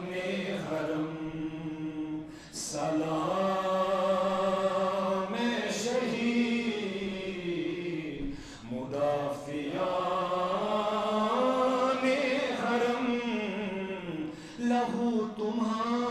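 A man chanting an Urdu devotional salam into a microphone, in long drawn-out notes that slide up and down in pitch, with short breaks for breath about every six seconds.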